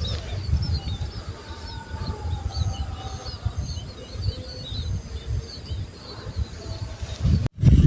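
Many small birds chirping and twittering in open countryside over a louder, irregular low rumble. The sound drops out suddenly near the end.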